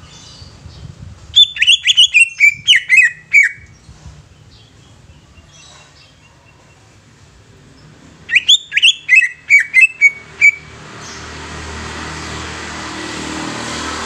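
Caged male green leafbird (cucak ijo) singing two loud bursts of quick, chattering notes that step down in pitch, each about two seconds long and several seconds apart. A broad rushing noise swells near the end.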